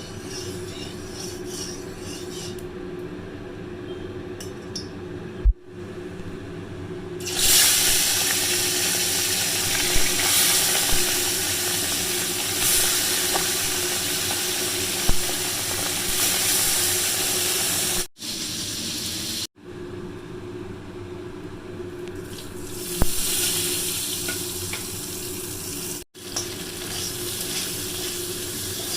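Fish frying in a pan of hot oil, sizzling steadily and getting louder about a quarter of the way in, with a few sharp clinks of utensils against the pan. A steady low hum runs underneath, and the sound breaks off abruptly several times.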